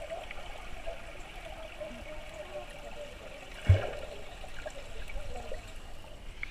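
Muffled underwater sound of swimming-pool water heard through a submerged action camera: a steady hiss with a faint hum, and one dull thump about halfway through.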